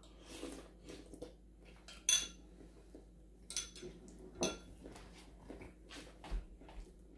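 Porcelain Chinese soup spoon and ceramic bowl clinking: soft sips from the spoon, then several sharp clinks as spoon and bowl are handled and set down.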